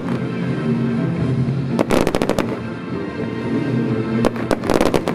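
Fireworks going off in two quick volleys of sharp bangs, about two seconds in and again near the end, over music that plays throughout.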